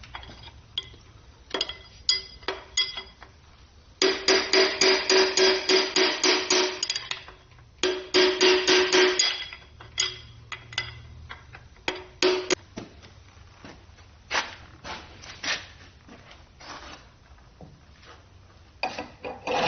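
Hammer blows on metal engine parts of a Ford 351W short block during teardown. Two quick runs of ringing strikes come at about four a second, then scattered lighter knocks.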